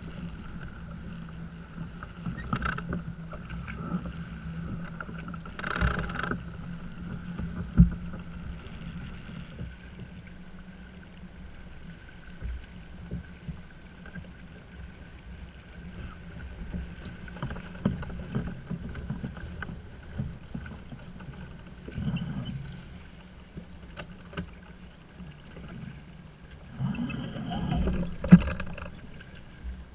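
Small sailing yacht under sail: water and wind noise along the hull with a steady hum underneath. Now and then there are sharp knocks and rattles from the lines and deck fittings as the sheets are handled, the loudest about eight seconds in and near the end.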